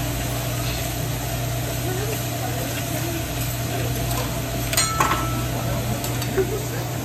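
Meat and vegetables sizzling on a hibachi flat steel griddle as the chef stirs and turns them with metal spatulas, over a steady low hum. A few sharp metal clinks of spatula on griddle come about five seconds in, one ringing briefly, and another near the end.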